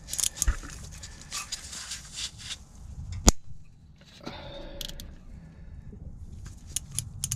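Ratchet clicking in quick runs as the 8 mm bolts holding the hydraulic timing-chain tensioner are undone, with one sharp metallic knock about three seconds in.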